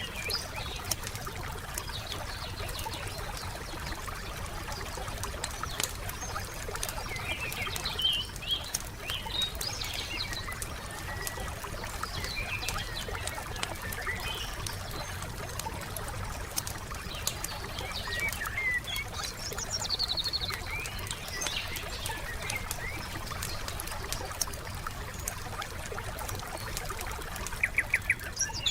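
Campfire crackling with a steady trickle of water, and songbirds chirping here and there over it. Near the end, a quick run of about five loud, sharp notes.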